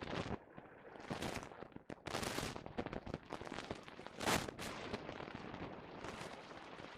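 Scattered clicks and knocks of small parts and tools being handled, with the loudest knock a little past four seconds in.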